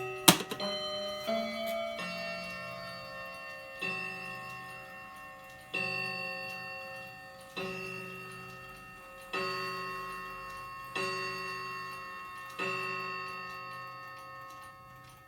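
Mantel clock striking on its chime rods: a sharp click at the start, then a slow, even run of strikes just under two seconds apart, each ringing out with several tones and slowly fading.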